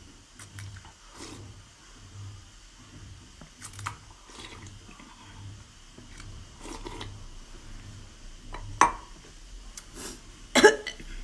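Close-miked eating sounds: steady chewing at about two chews a second, with scattered sharp clicks, the loudest two near the end.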